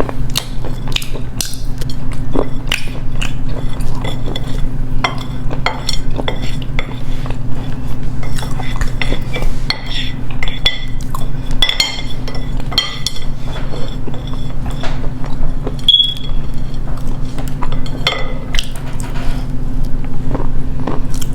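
Hard edible clay being bitten and crunched close to the microphone: a dense, irregular run of sharp cracks and clinks, over a steady low hum.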